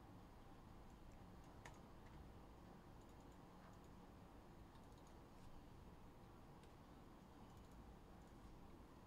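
Near silence: low room hum with a few faint, scattered clicks.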